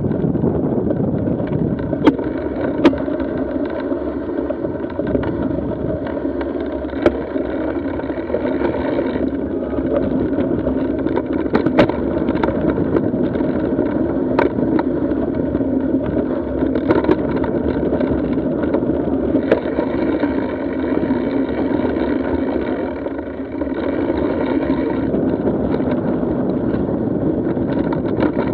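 Mountain bike riding over dirt and gravel trail, picked up by a camera mounted on the bike: a steady rush of knobby tyres on the ground mixed with wind on the microphone, broken by scattered sharp knocks and rattles as the bike goes over rocks and bumps.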